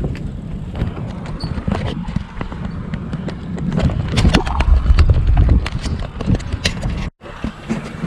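Bicycle riding over brick paving: irregular clicking and rattling from the bike and camera, over wind buffeting the microphone, which is heaviest about four to five seconds in. The sound cuts out briefly near the end.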